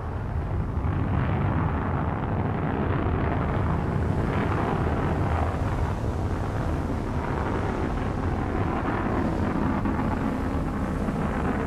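Deep, steady rumble with a rushing noise over it, building slightly in the first second and then holding.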